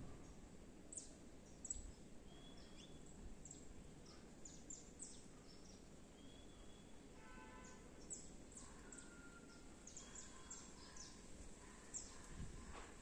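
Faint outdoor background hiss with many brief, high chirps of birds scattered throughout, and a few short pitched calls in the middle.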